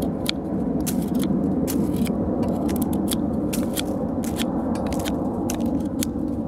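Saami-style knife blade whittling shavings off a wooden stick: a quick series of short, crisp scraping cuts, a few strokes a second, the blade passing through the wood with little effort. A steady low rumble runs underneath.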